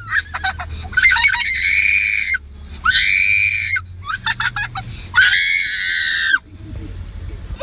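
High-pitched screaming: three long held screams of about a second each, with short clicky sounds between them.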